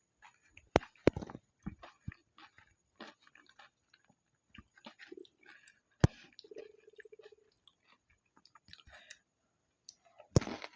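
Close-miked chewing of pani puri: wet chewing and mouth clicks, broken by sharp crunches of the crisp puri shells about a second in, at about six seconds, and near the end.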